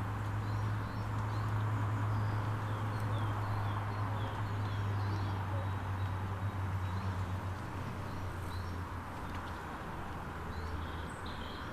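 Small birds chirping and twittering outdoors, with short high chirps scattered throughout. Under them runs a low steady hum that fades after about nine seconds.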